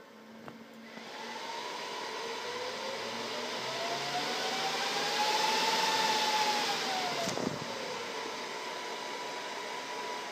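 Dell PowerEdge 2850 server's cooling fans spinning up at power-on: a rushing whine that rises in pitch and grows louder to a peak about six seconds in, then, just after a sharp click, falls back in pitch and level as the fans slow from full speed during boot.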